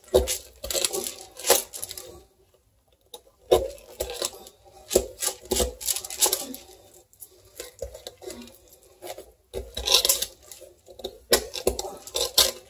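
Somewhat serrated boning knife sawing through a raw turkey's backbone: irregular crunching and crackling of bone and cartilage in short strokes, with a pause about two seconds in.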